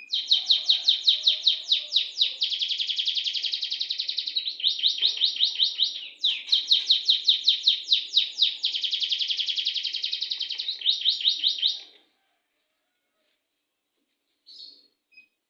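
Domestic canary singing a long song of fast rolling trills, the rate of the repeated notes changing from phrase to phrase; the song stops abruptly about twelve seconds in, with a faint chirp or two after.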